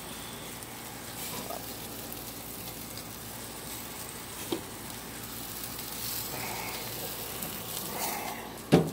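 Chicken thighs sizzling steadily on a barbecue grill, with a sharp knock near the end.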